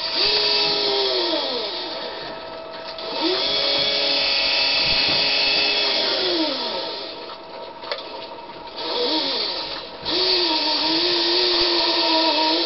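Electric whine of a radio-control sail winch servo turning the square sail's yards. It runs four times, for a few seconds each, with the pitch rising as it starts and falling as it stops.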